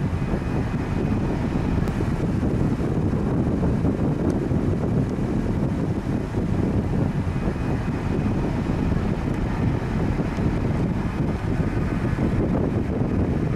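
Wind buffeting the microphone: a steady, gusty low rumble with no distinct events, over the general background noise of an airport.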